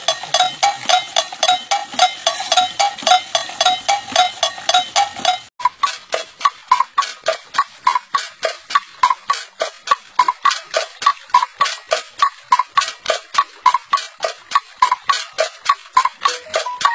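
Rice-field bird-scaring device knocking steadily, about four sharp strokes a second, each with a short hollow ring. About five and a half seconds in the sound changes abruptly and the ring becomes higher-pitched, with the knocking rhythm unchanged.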